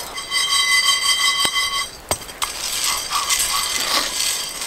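Raw green coffee beans rattling and scraping in a cast iron skillet as they are stirred with a wooden stick. A steady high ringing tone runs for about the first two seconds, and a few sharp clicks come around the two-second mark.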